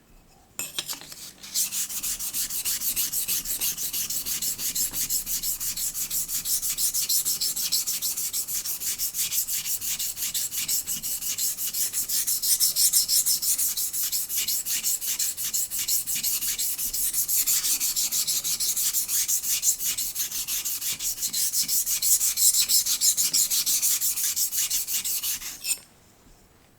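Steel plane blade from an old Stanley 220 block plane rubbed back and forth on the coarse side of a wet combination water stone, a fast, even scraping rhythm as its rusty back is flattened. It starts about a second and a half in and stops shortly before the end.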